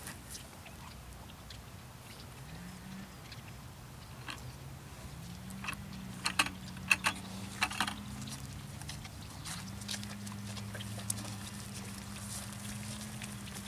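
Wagyu cattle drinking beer from a plastic bucket: a cluster of sharp slurping clicks and knocks comes about six to eight seconds in, over a low steady hum.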